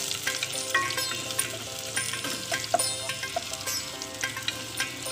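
Chopped garlic sizzling as it sautés in oil in a stainless steel saucepan, stirred with a wooden spatula that taps and scrapes against the pan in frequent short ticks.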